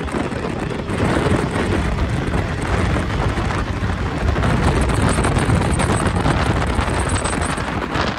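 Wind rushing over the microphone on an open skiff running at high speed, over the steady running of its 2004 Yamaha 200 hp HPDI two-stroke outboard. It gets louder about a second in.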